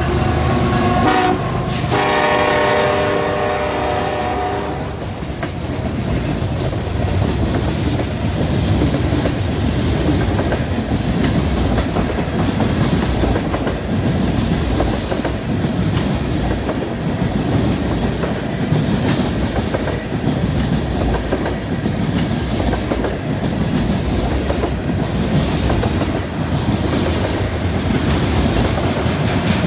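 Freight train passing close by: a diesel locomotive's horn sounds for about three seconds near the start over the locomotive engine noise. Then comes the steady rumble of tank cars and hoppers rolling past, with wheels clicking over rail joints.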